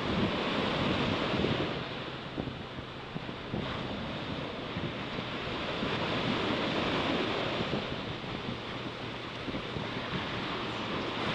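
Sea surf breaking and washing up onto a sandy beach in a steady rush, with wind buffeting the microphone in low rumbles.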